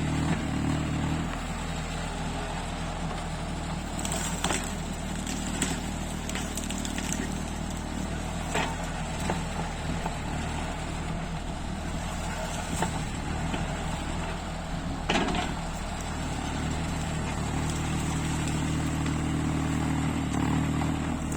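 Mini excavator's diesel engine running steadily, working harder in the first second and again over the last five seconds, with a few sharp knocks in between.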